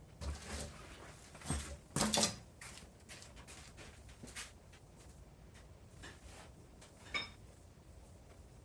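Scattered clinks and knocks of small metal parts and tools being handled on a workbench, a few separate clatters with quiet between, the loudest about two seconds in.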